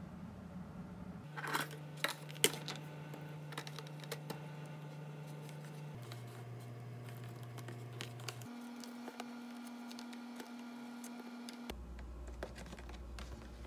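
Light clicks and taps from cabbage rolls and a plastic food container being handled on a countertop, with a few sharper clicks about two seconds in. Under them runs a faint steady low hum that changes pitch a few times.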